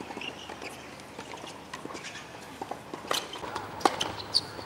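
Tennis ball bouncing on a hard court and being struck by rackets: scattered sharp knocks and pops, the loudest just under four seconds in.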